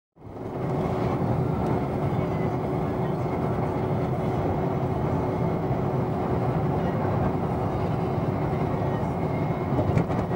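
An all-electric MAN truck at motorway speed, heard from its cab: a steady rush of tyre and road noise with a faint steady whine and no diesel engine sound.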